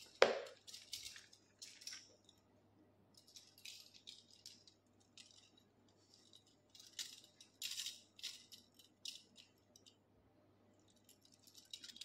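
Gold necklace chains and beads jingling and clinking as the necklace is handled and lifted, in faint scattered rattles, with a sharp click just after the start.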